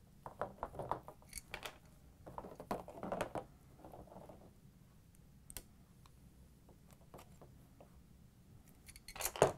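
Light clicks, taps and scrapes of pliers and small hose clamps being worked off a corrugated plastic dishwasher fill hose and set down on a hard tiled surface, in short bursts with pauses between, the loudest cluster just before the end.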